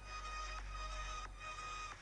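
Soft background music: a slow melody of held notes changing about every half second.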